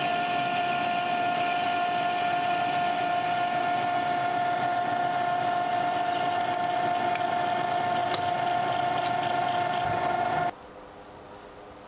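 Metal lathe running while turning a small metal tube, with a steady whine of several tones. The whine cuts off about ten and a half seconds in.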